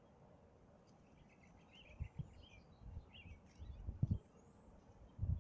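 Small birds chirping in short bursts, with several brief low thumps in between; the loudest thump comes near the end.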